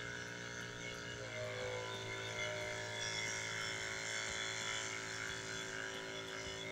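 Small electric oil-transfer pump running steadily with a humming tone, drawing gear oil through a clear hose to fill a manual transmission. Its tone steps up slightly about a second in.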